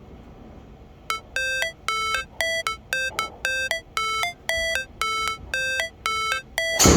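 Electronic background music: a beeping synth melody of short repeated tones at about two to three a second, alternating in pitch. It ends in a loud swoosh near the end.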